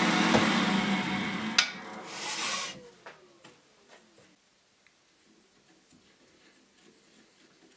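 Wood lathe running while a twist drill bores through a segmented wooden pen blank; about a second and a half in there is a sharp click and a brief hiss, then the lathe winds down, falling in pitch and fading out by about four seconds. Faint small ticks of handling follow.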